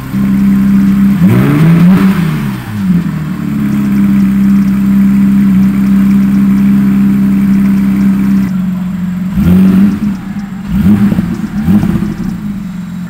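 Porsche 911 GT3's naturally aspirated flat-six, breathing through an Akrapovič slip-on muffler, being revved. There is a quick rise and fall in pitch a second or two in, then a steady held rev for several seconds, then it drops back with a few short throttle blips near the end.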